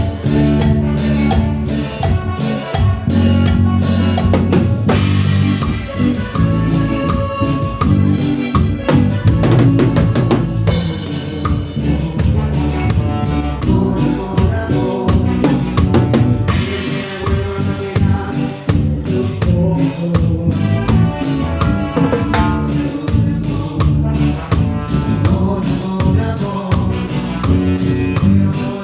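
Loud instrumental music with a drum kit keeping a steady beat over bass and melodic lines.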